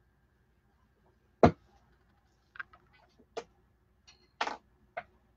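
Small hard objects being handled on a table: a sharp knock about a second and a half in, then several lighter clicks and taps at uneven intervals.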